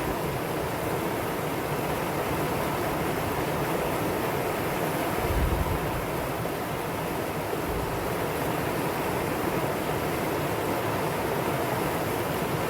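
Valley stream water rushing steadily over rocks, an even continuous rush with a brief low rumble about five seconds in.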